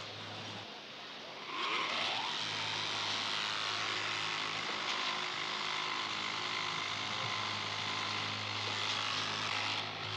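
A motor that speeds up with a rising whine about a second and a half in, then runs loud and steady, over a constant low hum.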